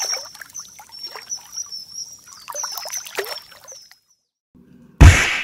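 Intro sound effect: a run of water-drop plinks with short high tones, fading out about four seconds in, followed near the end by a sudden loud whack.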